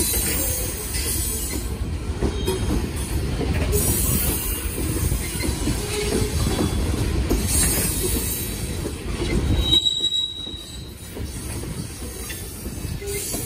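Loaded freight cars of a gravel train rolling past: a steady low rumble of steel wheels on rail, with a brief high wheel squeal. The rumble drops off about ten seconds in.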